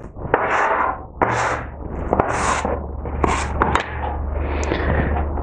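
Plastic dough scraper sweeping a pile of flour and powdered sugar across a marble countertop, repeated scraping strokes about one a second.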